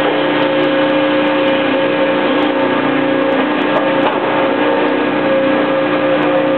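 Industrial machinery running with a loud, steady hum: several fixed tones over an even noise, unchanging throughout.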